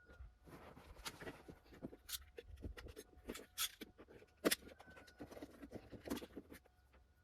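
Factory felt pads being peeled and torn off the back of a plastic car door trim panel: irregular crackling rips and clicks, the sharpest about four and a half seconds in.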